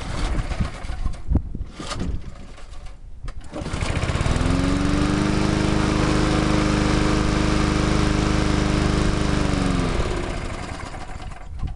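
Cold start of a 1985 Briggs & Stratton single-cylinder push mower engine that has sat unused for a year. The engine is pulled over with a few ragged sputters, catches about four seconds in and runs steadily for some six seconds. Near the end its pitch falls and it winds down.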